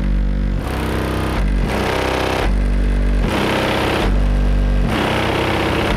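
Competition car audio system played very loud through its subwoofers: blocks of deep, heavy bass under a second long alternate in an even rhythm with rough, distorted higher sounds.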